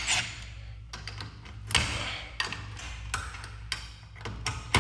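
Scattered sharp metallic clicks and taps as the set-screw bolts on a garage door's torsion-tube cable drum are worked loose.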